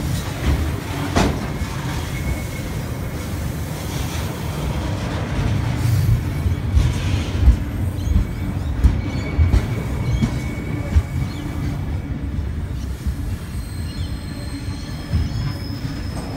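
Container freight train's wagons rolling past close by: a steady low rumble of steel wheels on the rails, with occasional sharp clanks and faint high wheel squeals.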